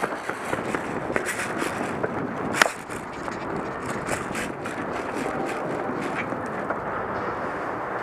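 Scuffing and clattering of a player moving with airsoft gear, with a run of short clicks and one sharp, loud knock about two and a half seconds in.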